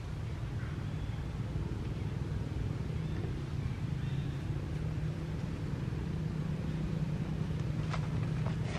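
A steady low engine rumble runs throughout, with a couple of short sharp clicks near the end.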